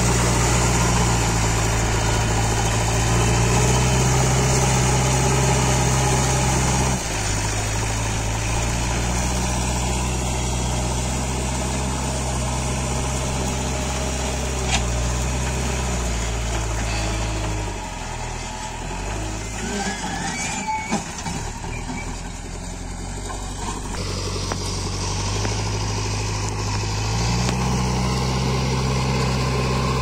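JCB 3DX backhoe loader's diesel engine running steadily while the machine levels loose soil with its front bucket. The engine note steps down about a quarter of the way in, dips and wavers around two-thirds through, and rises again near the end.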